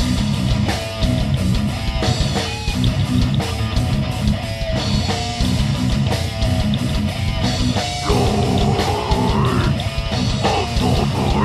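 Heavy metal band playing: distorted guitar, bass and a fast drum kit with dense low end. About eight seconds in, a high line bends down in pitch and back up.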